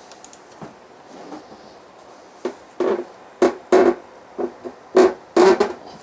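Hand socket ratchet backing out a tail-housing bolt on a T56 transmission. It is quiet at first, then, from about halfway, comes a run of short, sharp ratcheting strokes, about two a second.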